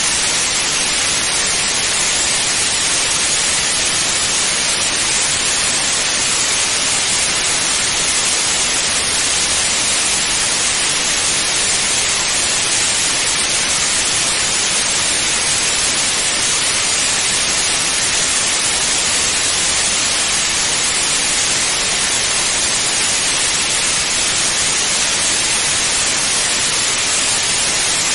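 Television static: a loud, steady, unbroken hiss of white noise, brighter in the treble, with no change throughout.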